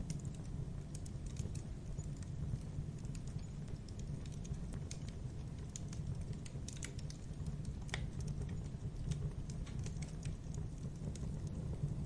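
Logs burning in a fireplace: irregular sharp crackles and pops over a steady low rumble of the fire, with one fuller pop about eight seconds in.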